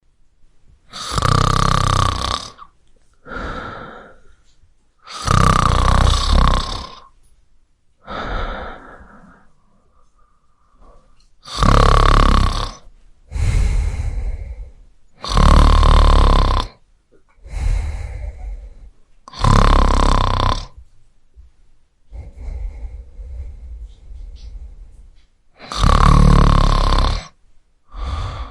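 A man snoring: loud snores about every three to four seconds, each lasting around a second and a half, with softer breaths between them. The snores die down to quieter breathing for a few seconds about two-thirds of the way through.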